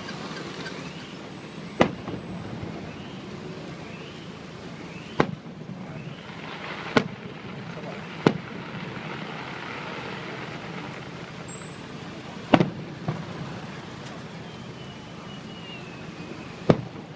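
Fireworks display: aerial shells bursting with sharp, irregularly spaced bangs, about seven of them, over steady background noise. Faint whistles rise and fall between the bursts.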